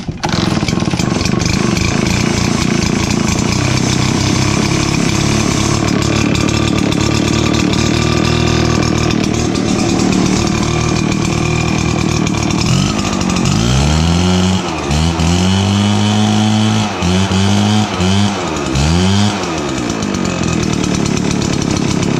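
RedMax EBZ7500 backpack blower's two-stroke engine running at a steady idle, then revved up and let back down about five times in quick succession before settling to idle again: a test run showing good throttle response after a new throttle cable and spark plug.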